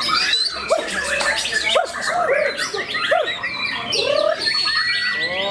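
White-rumped shama (murai batu) singing in competition: a rapid, varied stream of whistles, gliding and arching notes and harsh chirps, dense and overlapping with no pauses.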